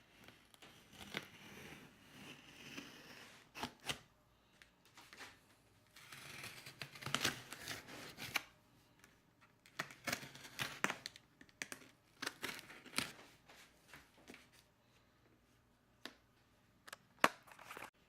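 A blade cutting through cardboard and packing tape on a shipping box, in irregular scraping and tearing strokes with sharp clicks between pauses.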